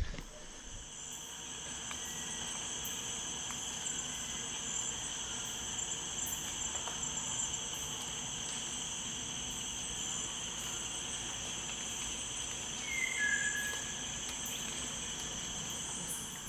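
Steady, shrill chorus of insects such as crickets or cicadas, several high-pitched tones sustained together. A brief two-note chirp stands out about thirteen seconds in.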